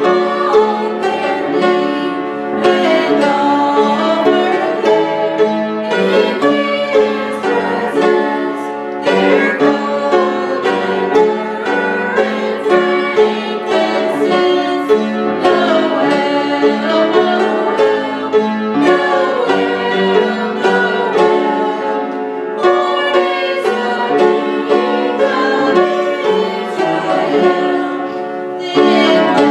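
Small mixed choir singing with an accompaniment of strings and piano, the music running on continuously with short breaths between phrases.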